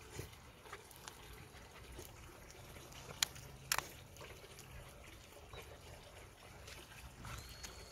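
Faint wet mouth sounds and scattered clicks of Jindo puppies licking and eating from a hand, with two sharper clicks a little after three seconds in and a brief thin high tone near the end.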